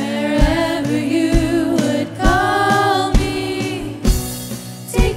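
Worship song: several voices singing over a band, with a kick drum beating about once a second.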